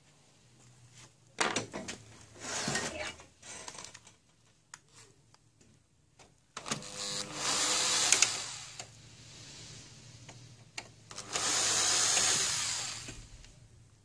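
Electric screwdriver whirring in three bursts of about two seconds each as it backs screws out of a laser printer's frame.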